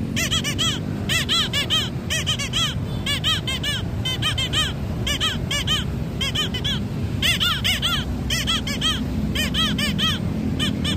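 Balloon squeaker toy (kokek balon): air from the balloon is squeezed out through its reed whistle in quick high-pitched squeaks, each rising then falling in pitch. They come in quick clusters of three to five, about once a second.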